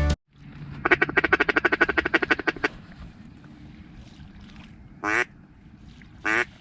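Duck quacking: a fast run of about twenty short quacks lasting about two seconds, then two single quacks near the end.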